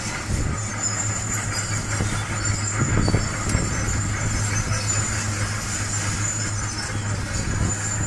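High-reach demolition excavator running with a steady low engine drone, faint high-pitched squeals coming and going over it, and a brief louder rumble about three seconds in.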